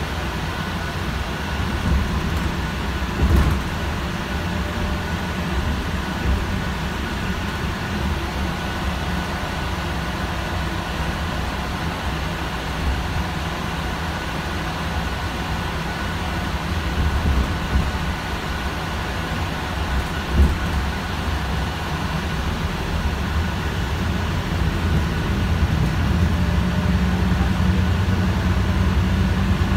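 Heuliez GX437 hybrid articulated bus heard from inside the passenger cabin while moving: a steady rumble of drivetrain and road noise with a faint steady high whine, and a few knocks and rattles. Near the end the low engine note grows louder.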